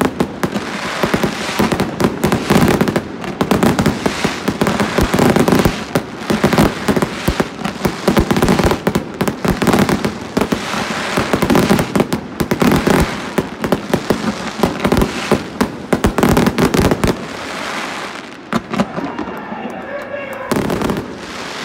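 A 1.4G consumer fireworks display firing rapid, near-continuous volleys of launches and crackling bursts. The volleys ease off for a few seconds near the end, then pick up again.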